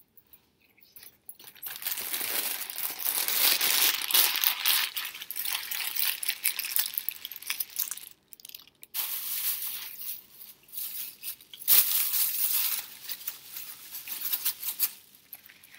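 Sandwich wrapper being crumpled and handled: a crackling rustle in two long spells with a short pause about halfway through, and a single sharp tap during the second spell.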